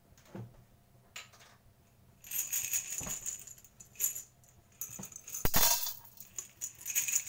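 Sugar cubes rattling and clattering as they are tipped into a metal wok, in two spells of rattling, with a sharp knock about five and a half seconds in.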